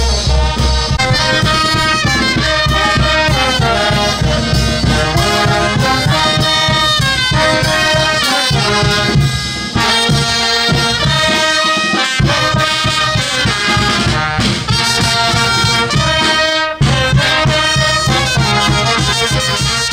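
Brass band playing a tune, with a steady low beat underneath that drops out for a moment a little before halfway.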